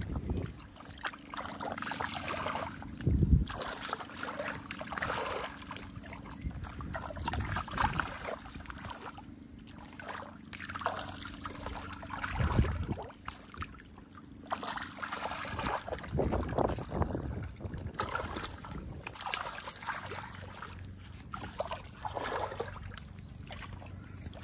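Rubber boots squelching and sloshing through shallow water and soft mangrove mud in irregular wading steps, with water trickling, and two heavier thuds, one about 3 seconds in and one about 12 seconds in.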